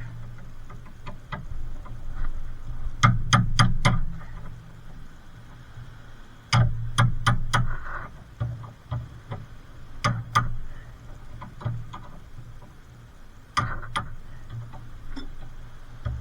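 Hand tools working on a car's suspension: short runs of four or five sharp metal clicks, a few seconds apart, with single clicks in between.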